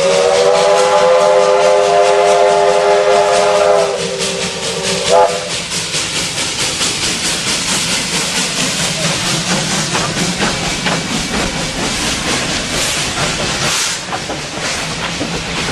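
J class steam locomotives passing close: a chime whistle sounds one long blast that ends about four seconds in, then gives a short toot about a second later. After that comes loud steam hissing, with rapid exhaust beats and wheel clicks as the engines and carriages go by.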